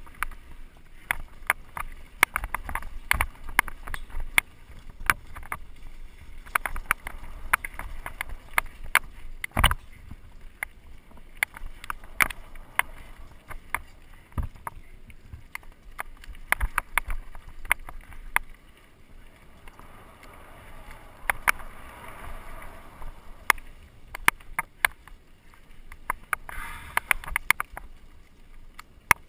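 Mountain bike clattering down a rough dirt trail: a steady run of irregular sharp clicks and knocks as it hits bumps, over a low rumble, with one heavy thud about ten seconds in.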